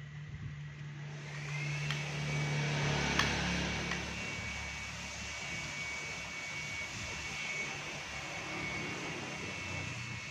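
A small electric motor moving air spins up about a second in, with a rising whine that then holds steady over a rushing noise. A single sharp click comes about three seconds in.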